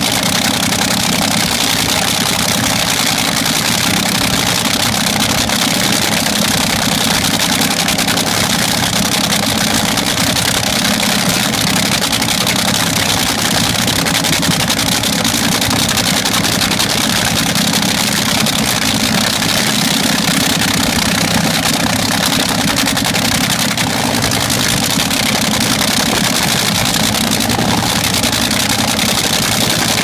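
Supercharged, nitromethane-burning engine of an AA/FD fuel dragster cackling at a steady idle, with no revving.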